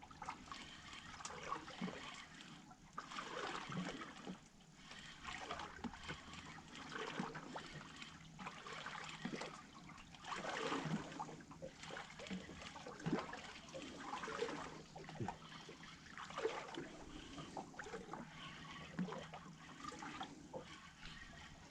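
Water lapping and trickling against the hull of a small fishing boat, with irregular small splashes.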